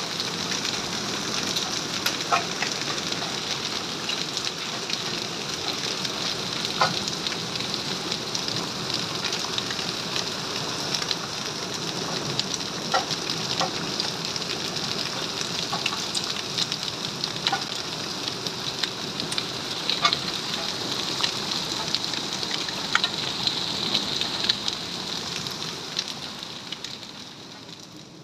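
Heavy rain and hail falling on wet ground: a steady hiss with scattered sharp ticks of hailstones striking, fading near the end.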